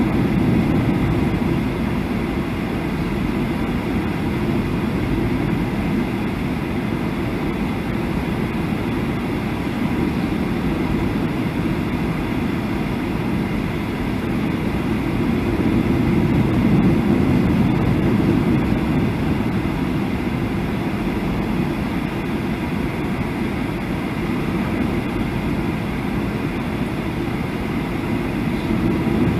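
Steady cabin noise inside a Boeing 737 airliner on approach: a deep engine and airflow rumble, swelling a little about halfway through.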